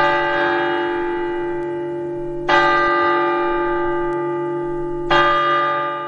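A large clock-tower bell strikes three times, about two and a half seconds apart. Each stroke rings on and slowly dies away, and the last is still fading at the end.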